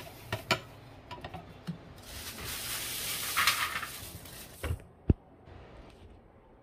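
Kitchen containers and utensils being handled: a few clicks and knocks, a hissing rush lasting about two seconds in the middle, then a couple of knocks and one sharp click.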